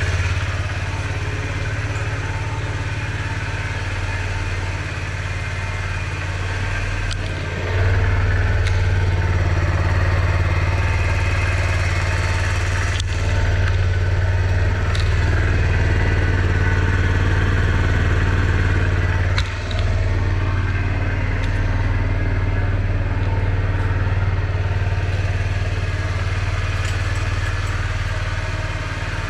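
Kawasaki Z125 Pro's small single-cylinder engine idling steadily on fresh oil after an oil change, while it is checked for leaks. It gets louder about a quarter of the way in and dips briefly about two-thirds through.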